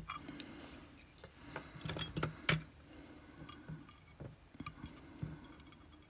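Small metal lock parts, the key pins of a Vachette V-DIS+ lock being taken apart, clicking and clinking as they are handled. A few sharper clicks come about two seconds in.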